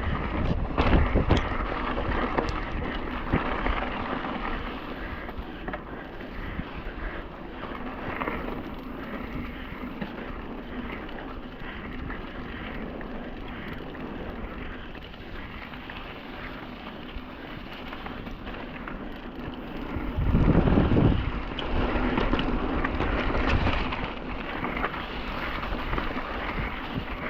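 Continuous rumble and rattle of a bike going down a dirt trail, with wind buffeting the microphone. There are sharp knocks near the start and a louder stretch of jolting about twenty seconds in.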